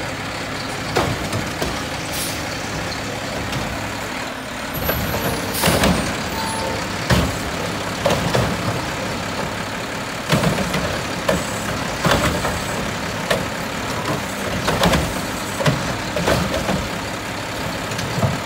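Mack LEU McNeilus Pacific front-loader garbage truck running as its front arms lift a cart over the cab, with a series of sharp bangs about every second or so from about six seconds in as the cart is knocked and emptied into the hopper.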